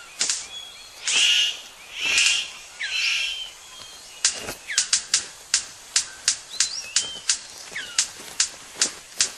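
Male superb bird of paradise displaying to a female. Three short noisy bursts about a second apart give way, about four seconds in, to a run of sharp clicks at roughly three a second, with gliding whistled bird calls throughout.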